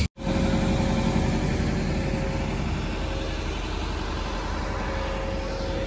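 Steady engine and traffic rumble with a thin, steady whine over it, starting right after a brief cut-out of the sound.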